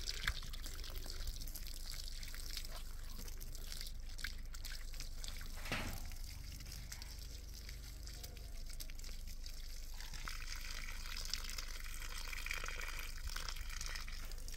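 Water running from a garden hose into a muddy puddle at the base of a young plant, a steady trickling splash that gets a little brighter about ten seconds in.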